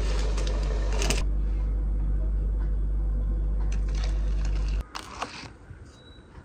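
A steady low drone that cuts off abruptly about five seconds in, followed by a few faint clicks and rustles.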